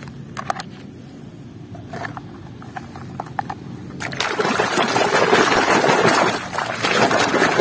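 A few light clicks of plastic toys knocking together, then from about four seconds in, loud splashing and sloshing as a plastic toy train is swished and scrubbed by hand in muddy water.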